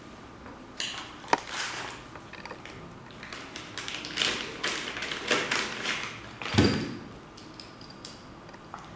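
Handling sounds of scope-mount packaging: a small plastic parts bag crinkling and metal Picatinny ring parts clicking, with a sharp click early and a dull thud about two-thirds of the way through as something is set down on the table.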